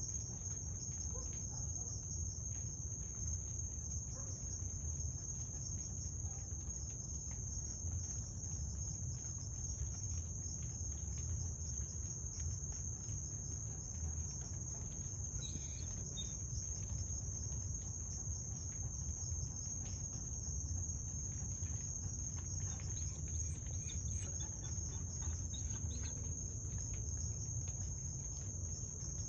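Crickets trilling at night: a steady, unbroken high-pitched chorus, with a low rumble underneath.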